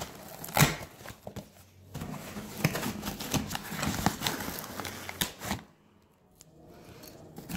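A cardboard shipping box being opened by hand: cardboard and filament tape handled and scraped, packing paper rustling, with scattered knocks and clicks. The noise stops for about a second about six seconds in.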